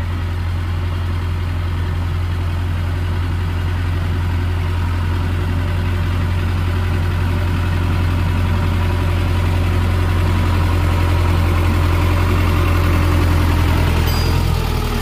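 Sonalika DI-750 III tractor's diesel engine running steadily as it pulls a potato planter through the field, growing gradually louder as it comes close.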